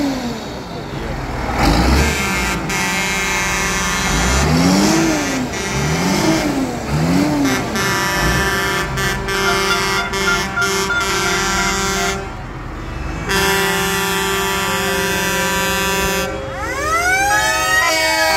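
Tractor horns sounding in a passing tractor parade: several long, steady horn blasts overlap, with siren-like horn calls rising and falling in pitch a few times, over the low rumble of the tractors' engines.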